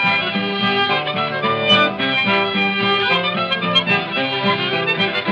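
Instrumental break of an old-time country song: harmonica playing the melody over a strummed acoustic guitar, on a late-1920s recording with a narrow, dull sound.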